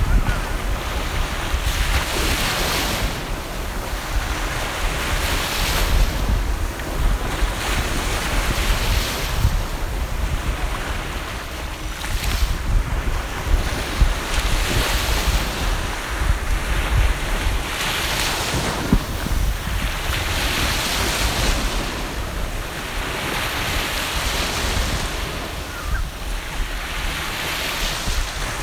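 Sea surf: waves washing in and breaking every few seconds over a steady wash, with wind buffeting the microphone as a low rumble.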